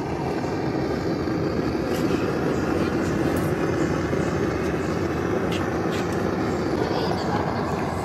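A machine running steadily, with a few faint clicks on top.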